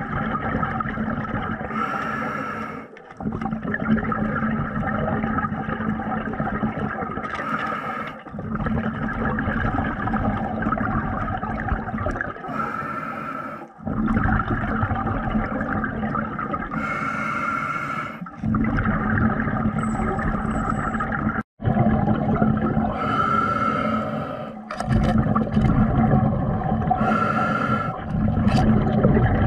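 A diver breathing underwater through a regulator. Long inhalations alternate with short gurgling bursts of exhaled bubbles, repeating about every four to five seconds.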